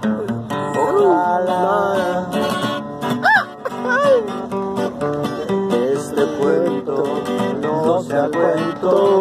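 Acoustic guitar strummed and picked, with a man's wordless vocal sliding up and down in pitch over it.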